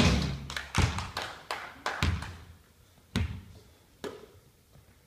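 Basketball bounced on a hardwood gym floor in a free-throw routine, about six dribbles at a steady pace, each one echoing in the hall. The dribbling stops about three seconds in.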